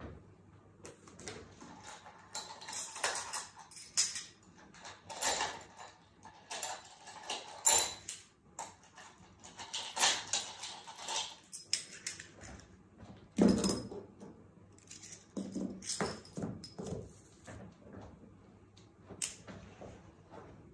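Paper sewing-pattern pieces and silk fabric being handled and smoothed out, rustling and crinkling in irregular bursts, with a dull thump about thirteen seconds in.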